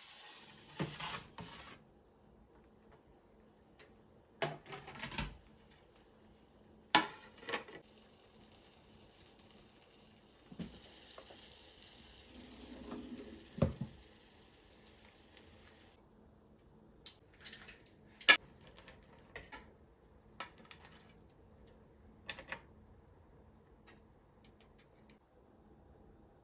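Kitchen work with dishes and utensils: scattered clinks and knocks, with a steady hiss for about eight seconds in the middle that cuts off suddenly.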